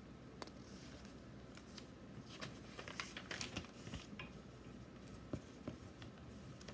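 Faint rustling and light clicks of a paperback book being handled and its pages turned, thickest in the middle.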